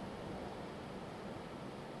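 Windstorm wind blowing as a steady rushing noise, strongest in the low range, with some buffeting on the microphone.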